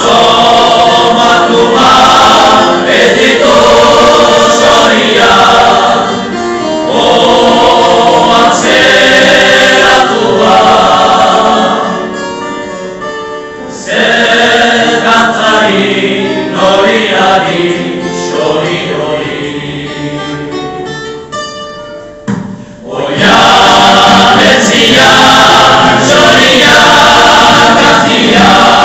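Male choir singing in harmony with acoustic guitar accompaniment. About twelve seconds in the singing drops to a softer passage, then swells back to full voice near the end.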